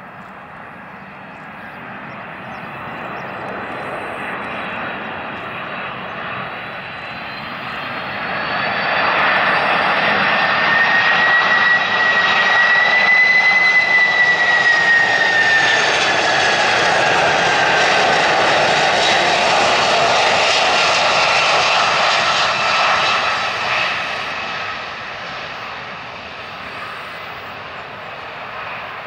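Boeing 747-400 freighter's four jet engines at approach power as the airliner flies low past the listener. The engine noise swells to a loud peak, with a high whine that rises slightly and then slides down in pitch as the jet goes by, before fading away.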